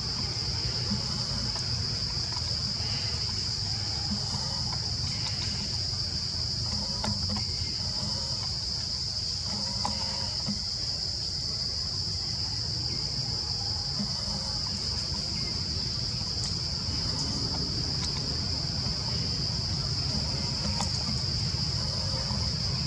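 Forest ambience: a steady high-pitched insect drone over a low rumble, with a few faint scattered calls.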